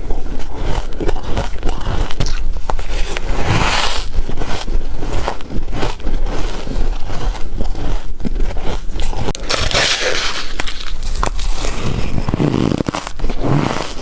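Close-up biting and chewing of ice, dense crunching and crackling with repeated sharp snaps as the ice breaks between the teeth.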